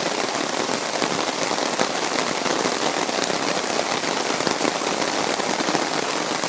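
Steady heavy rain falling: a dense, even hiss with many fine clicks of individual drops.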